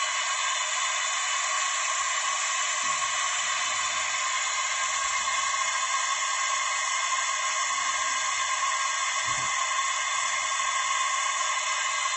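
A 2001 Audi A3 just after a cold morning start, giving a steady whirring hiss laced with several steady whining tones. This is a strange noise that appears only on the first start of each day and not on later restarts.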